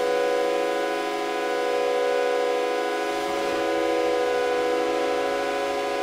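Synthesizer drone: a chord of steady held tones that swells slowly in level, with a falling sweep a little past halfway through.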